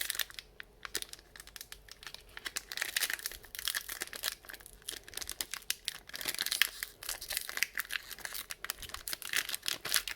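Foil booster pack being torn open and crinkled by hand, a dense run of crackly rustling with sharp little rips.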